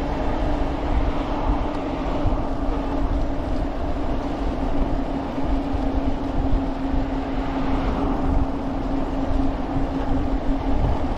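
E-bike ridden fast on pavement: wind rushing over the microphone with a steady hum from the bike running underneath.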